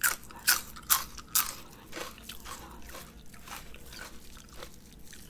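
Close-miked crunchy chewing of fresh parsley: four sharp crunches about half a second apart, then softer, sparser chewing.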